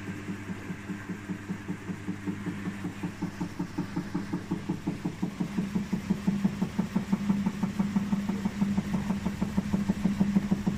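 Samsung front-loading washing machine in its spin cycle, its drum humming with a rapid, even knocking of several beats a second that grows louder as the spin goes on, like something being flung against the drum wall. The noise comes from a cracked drum spider (tripod support) at the back of the drum.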